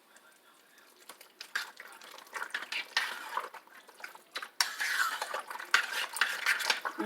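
A spoon stirring a thick mix of uncooked macaroni, shredded cheddar, milk and sour cream in a crock pot, clinking and scraping against the crock, getting louder about two-thirds of the way through.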